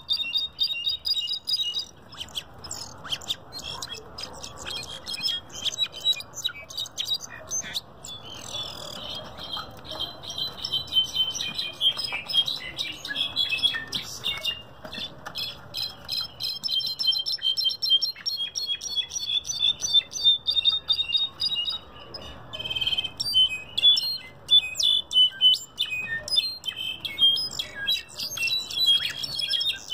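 Caged jilguero (brown-backed solitaire) singing: long, fast strings of high, ringing notes, broken by pauses about two seconds in and again near 22 seconds.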